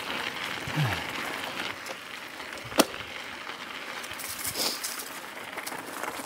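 Mountain bike rolling along a dirt singletrack trail: steady tyre and trail noise with light crackling, and one sharp click a little under three seconds in.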